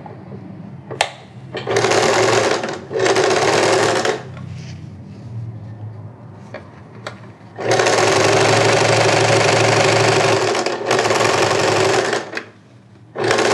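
Domestic electric sewing machine stitching piping onto fabric with a piping foot, in stop-start runs: two short bursts, then a longer run of about four seconds, then another burst near the end, as the seam is worked around a curve. A single sharp click comes about a second in.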